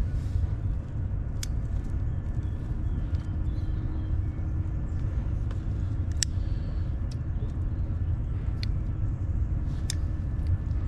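A steady low rumble, broken by four sharp clicks of a lighter being sparked; the last, near the end, comes as its flame flares up.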